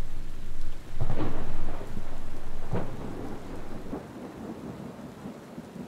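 Thunder rolling over rain, loudest about a second or two in, then dying away.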